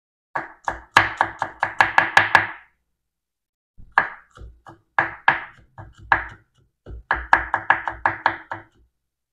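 Kitchen knife chopping garlic cloves on a wooden cutting board. A quick run of knocks, about six a second, is followed by a pause of about a second, then a few slower separate cuts, then another quick run near the end.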